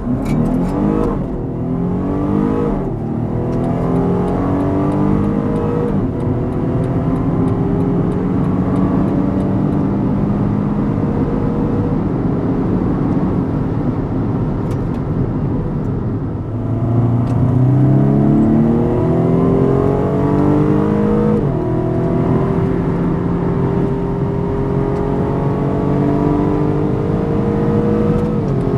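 BMW M135i xDrive engine under hard acceleration: the revs climb and drop back at quick upshifts, three in the first six seconds. Then comes a long, slow pull in a high gear. About two-thirds of the way in the revs dip and then climb steeply again into another upshift, and there is a final upshift at the very end.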